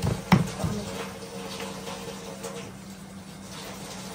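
Water running from a tap, with a couple of sharp knocks in the first half second and a steady hum underneath.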